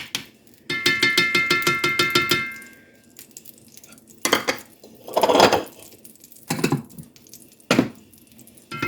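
A metal spoon scraping and clinking rapidly against a ringing container while a tablespoon of bacon grease is scooped out, followed by a few separate knocks and a scrape of utensils, with the rapid clinking starting again near the end.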